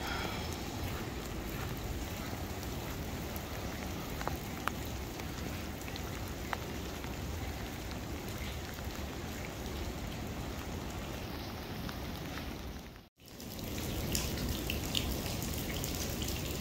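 Steady rain falling, with a few separate drops ticking sharply. The sound cuts out for a moment about thirteen seconds in.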